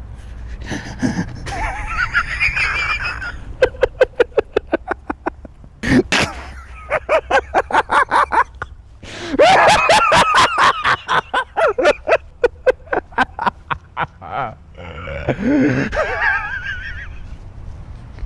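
A man laughing loudly and at length, in several long runs of rapid 'ha-ha' pulses broken by breathy gasps and cackling, wheezing stretches.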